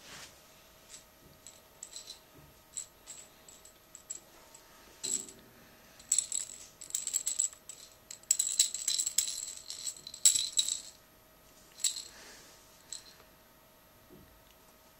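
A cat chewing and gnawing on a stick: irregular crackling clicks and rattling ticks, sparse at first, becoming a dense flurry in the middle, then tailing off near the end.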